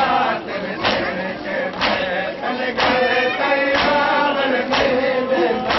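A crowd of men chanting a noha, a Shia mourning lament, in unison, while beating their chests in matam. The hand-on-chest slaps land together in a steady beat about once a second.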